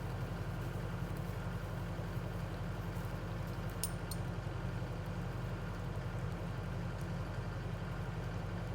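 Skid steer engine running steadily at a low, even idle, with two short sharp clicks about four seconds in.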